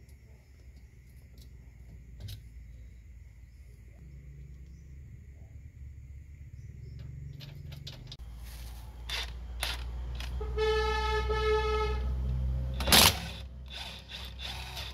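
Cordless impact wrench giving a short, loud burst as it tightens a nut onto a new rear wheel stud, drawing the stud into the hub. Before it comes a steady pitched tone lasting about a second and a half, with light clicks of hand tools on the hub earlier on.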